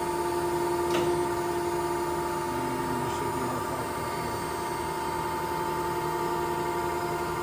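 Okamoto ACC-2040DX2 hydraulic surface grinder running with a steady hum from its spindle and hydraulics as it retracts and parks the table after grinding. A sharp click about a second in and a fainter one near three seconds.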